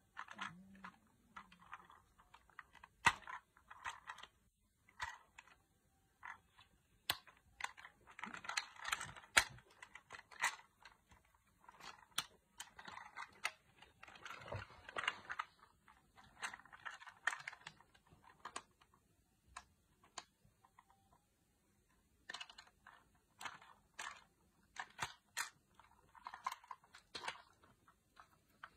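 Plastic clicking and ratcheting of a VTech Switch & Go Dinos Spinosaurus toy's jointed parts being twisted and snapped into place by hand as it is transformed, with handling rustle; irregular sharp clicks between short bursts of scraping.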